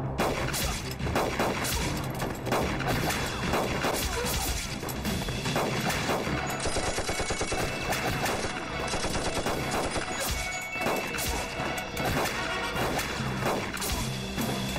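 Heavy gunfire from several guns at once, rifles and pistols, the shots overlapping in a dense, continuous fusillade.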